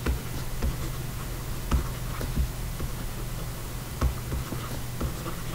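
A low steady hum, with light scattered ticks and scratches of a stylus writing on a tablet.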